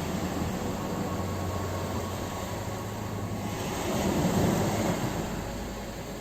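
Ocean waves surging and washing onto a shore, a wave building to its loudest about four seconds in.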